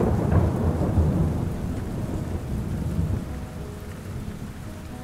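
Rolling thunder over steady rain. The low rumble is strongest in the first second and slowly fades. Faint sustained music tones come in near the end.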